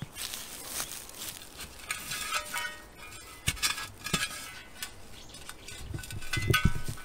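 Steel shovel digging into grassy, root-filled soil around a tree stump: repeated scraping crunches and clinks of the blade, with heavier thuds near the end.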